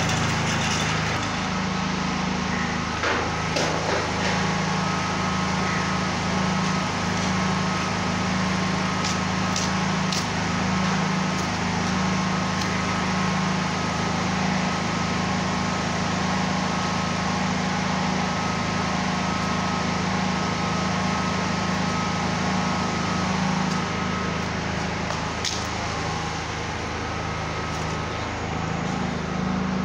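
A small engine or motor running steadily with a constant low hum, with a few faint clicks.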